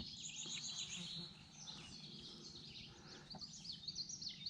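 Songbirds singing: quick runs of short, high chirping notes, repeating throughout, over a faint low background.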